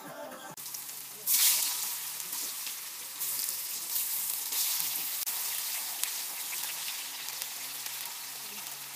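Potato pieces frying in hot fat on a steel disc grill plate (tanjiraca) over a wood fire, a steady sizzle. A sudden loud hiss about a second in as more potato pieces go into the hot fat.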